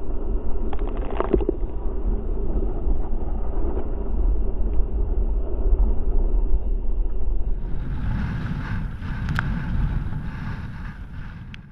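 Strong wind rumbling on the microphone over rough sea, with waves and splashing water. About a second in there is a short clatter, and from about two thirds of the way through the splashing grows brighter and hissier with a few sharp clicks before the sound fades out.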